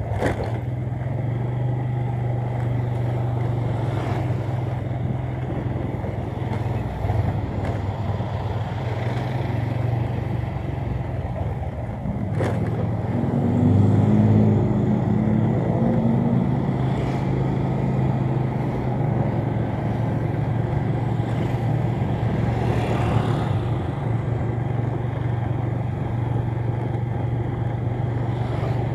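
Motorcycle engine running steadily while riding along a street. About halfway through, another motorbike passes close by and the sound grows briefly louder.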